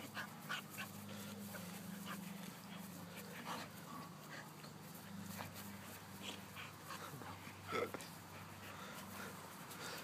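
Two pit bulls play-fighting, giving short, scattered vocal sounds as they wrestle, the loudest about eight seconds in.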